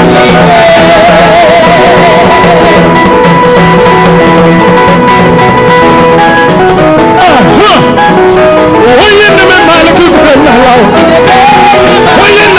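Live praise music: a singer with a wavering voice over a band holding sustained chords, loud and continuous.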